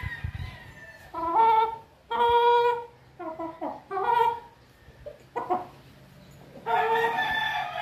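Rooster calling in a run of short clucking calls, with a longer drawn-out call starting near the end.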